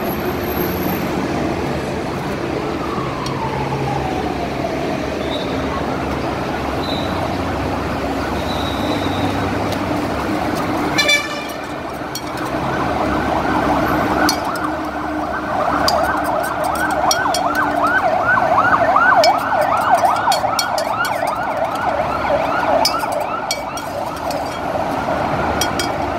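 Emergency-vehicle siren on a busy road. It sounds a fast, repeating yelp from about halfway through and is loudest a few seconds later, over steady traffic noise, with one slow falling wail in the first few seconds.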